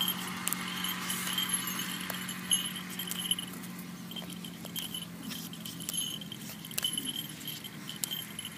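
Small bells on a hawk jingling in uneven bursts as the tethered bird flaps and shifts on the handler's hand, with scattered light clicks and a faint low steady hum underneath.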